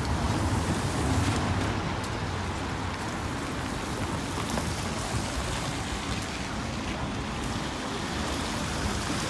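Steady street noise of road traffic: a constant low rumble with hiss, swelling slightly as vehicles pass.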